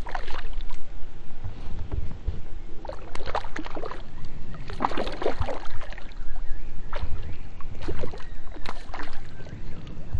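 A hooked fish splashing and thrashing at the water surface in repeated bursts as it is played on a float rod, over a steady low rumble.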